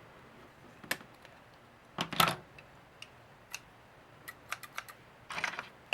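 A pair of scissors, newly mended with glue, being handled and worked open and shut to test the repair: scattered sharp clicks and snips, a louder cluster about two seconds in and a quick run of small clicks near the end.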